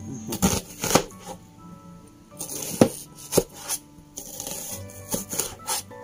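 A kitchen knife cutting a large onion into wedges, the blade knocking down on a plastic cutting board in about eight separate, irregular strokes, the loudest near the middle. Soft background music plays underneath.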